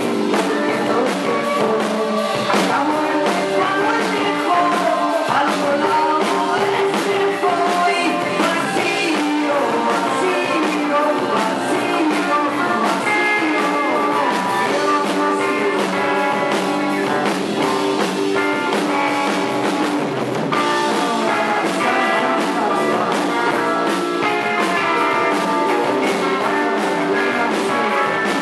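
Live band music: a man sings into a handheld microphone over guitar and drums, played at a steady level.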